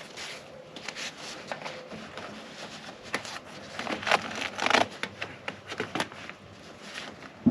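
Rustling and handling of a fabric pet door protector and its packaging, with scattered light clicks and knocks; the loudest rustle comes a little past the middle.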